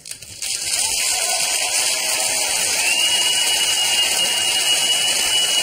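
Electric hairdresser's hood dryer running: a steady rushing of air with a thin high whine that sets in about halfway through.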